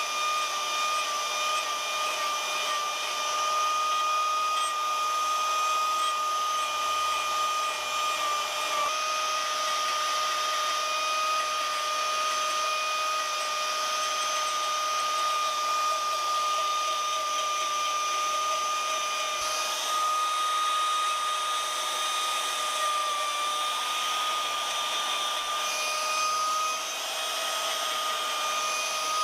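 Electric power carving tool with a rotary cutter running steadily, with a constant high whine.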